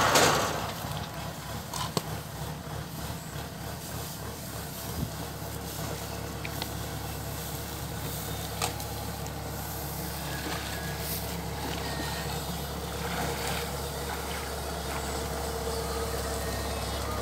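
Kubota DC-105X combine harvester's diesel engine running steadily at idle, a low even hum that grows slightly louder toward the end. A louder noise dies away in the first moment, and there are a few faint clicks about 2, 5 and 9 seconds in.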